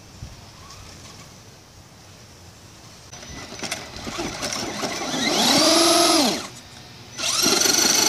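Electric motor of an RC monster truck whining as it is throttled, in two loud bursts in the second half whose pitch climbs and then drops. The truck is wedged against a trampoline leg, so the wheels are spinning without getting it free.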